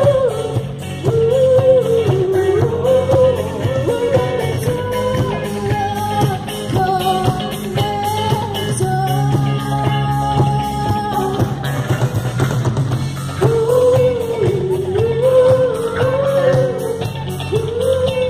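Live rock band playing through stage speakers: a woman singing a wavering melody over electric guitars, bass and a drum kit beating steadily.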